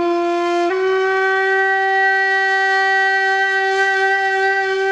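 A long held horn-like note, stepping up slightly in pitch under a second in and then steady: a wind-instrument sound effect laid over the pictures.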